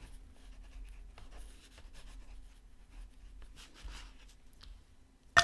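A dark drawing stick scratching rough strokes across toned paper, in faint, irregular scrapes. Near the end comes one sharp click, the loudest sound.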